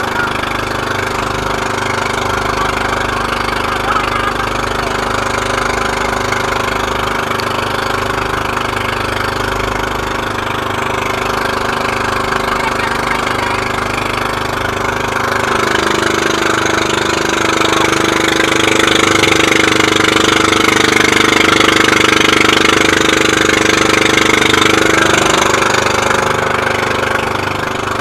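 Inboard engine of a motorised outrigger boat (bangka) running steadily under way, with wind and water noise. From about fifteen seconds in to near the end, a stronger droning tone sits over it and the sound gets a little louder.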